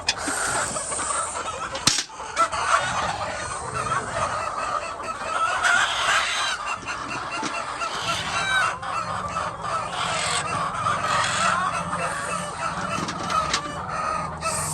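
A large flock of laying hens clucking and calling over one another in a constant chorus, with a single sharp click about two seconds in.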